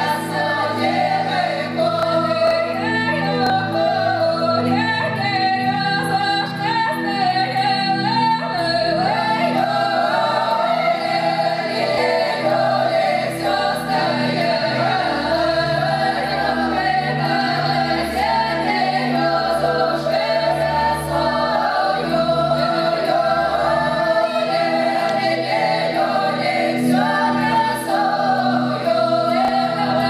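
Women's folk choir singing a Russian folk song together in several voices, continuously.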